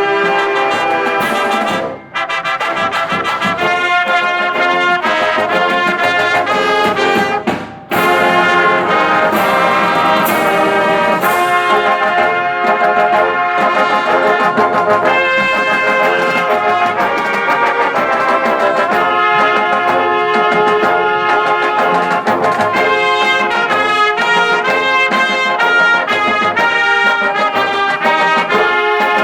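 Marching band playing live, led by trumpets and trombones, with a moving chordal melody. The music breaks off briefly twice, about 2 and 8 seconds in, and comes back in on a sharp accent after the second break.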